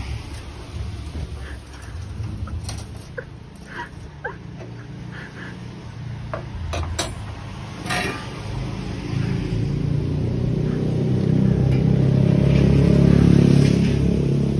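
Sharp metal clanks and a scrape from a steel cremation-furnace tray and its slide rails as the tray is pushed in and the rails are moved. A low motor rumble grows louder in the second half.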